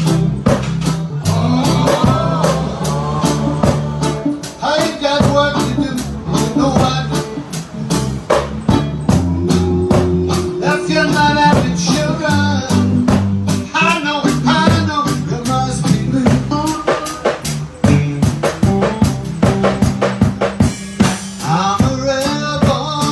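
Small live band playing roots reggae: guitars, percussion keeping a steady beat, and a man singing into a microphone.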